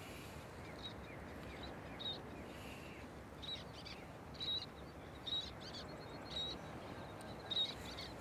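Birds calling: short, high chirps about once a second, the loudest near the end, over a steady outdoor hiss.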